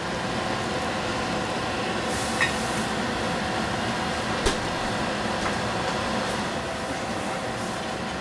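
Steady hiss from the saucepan of tomatoes and eggs cooking on the gas stove, with two light metallic clicks as the stainless-steel lid is set on the pan, about two and a half and four and a half seconds in.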